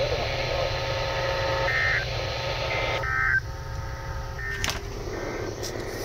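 Weather radio receiver giving a couple of short electronic beeps over a steady hiss as its menu buttons are pressed. The hiss cuts off suddenly about three and a half seconds in, followed by a few sharp clicks.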